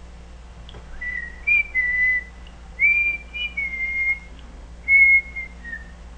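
A person whistling a short, wandering tune of several held notes, starting about a second in and ending on a lower, falling note.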